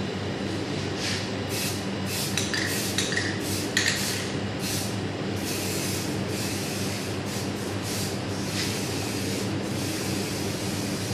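Aerosol spray can giving a run of short hissing bursts, some in quick succession, as it is sprayed onto a pastillage showpiece. A steady low hum runs underneath.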